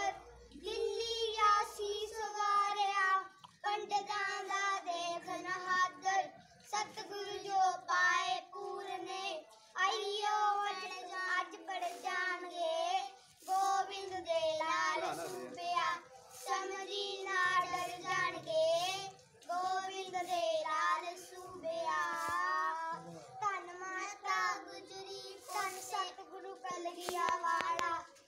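Two young boys singing a Gurbani shabd, a Sikh devotional hymn, their voices carrying the melody continuously.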